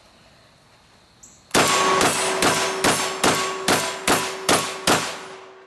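Rapid fire from a Mossberg 930 JM Pro 12-gauge semi-automatic shotgun: nine shots about two a second, starting about a second and a half in. A steel target rings from the hits and keeps ringing after the last shot.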